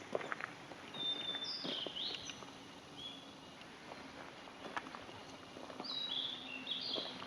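A small songbird singing two short phrases of high whistled notes, about a second in and again near the end, over soft irregular footsteps on a forest trail.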